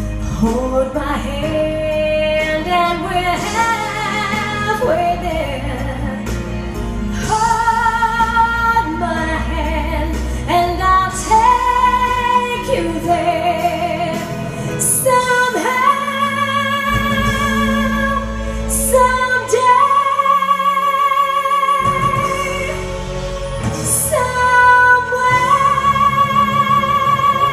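A woman singing live into a handheld microphone over backing music, the melody climbing and holding long notes with vibrato in the second half.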